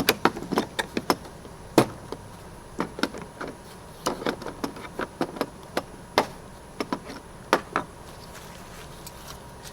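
Irregular clicks and clacks of hand tools, screwdrivers among them, being handled and taken out of the plastic case of a Pittsburgh 301-piece tool set.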